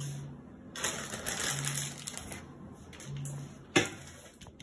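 Steel sieve rattling and tapping as maida flour is sifted into a bowl, with a sharp metallic knock near the end as something is set down.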